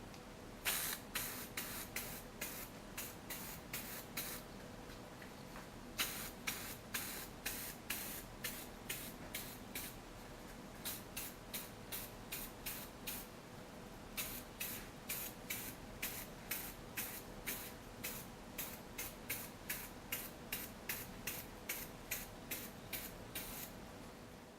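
Aerosol can of color-matched red metallic base coat spraying in short hissing bursts, about two a second, in runs with a few brief pauses, as light coats go onto a flexible rubber door trim.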